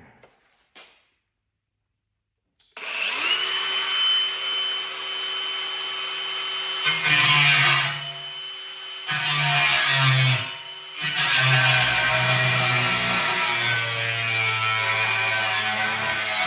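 Angle grinder with a cutting disc cutting a metal bracket. It starts a few seconds in, spinning up with a high whine, and cuts in several passes with two brief let-offs, then stops at the end.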